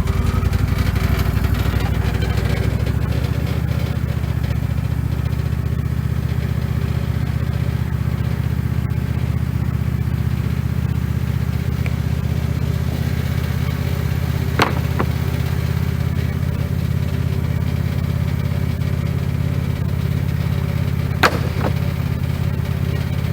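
An engine running steadily at a constant speed, with two sharp clicks or knocks, one a little past halfway and one near the end.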